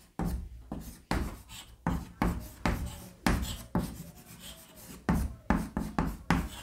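Handwriting or drawing by hand: a run of short writing strokes, about two a second, each starting sharply and fading quickly.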